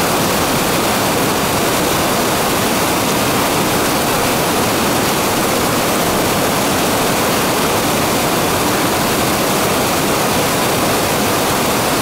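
Waterfall cascading over a sloping rock face, a loud, steady rush of white water.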